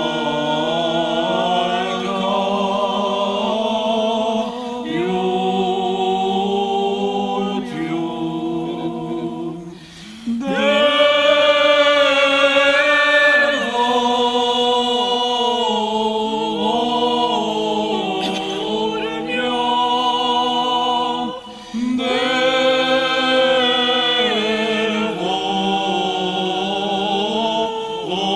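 Unaccompanied Oriental Orthodox liturgical chant sung by a group of voices, long held notes over a steady lower note. The singing pauses briefly about ten seconds in and again a little after twenty seconds.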